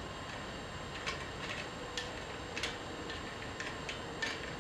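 Hand rivet nut tool being cranked on a steel rivet nut: a series of sharp metallic clicks, about seven, irregularly spaced. It is a second pass to set a rivet nut that did not tighten fully the first time.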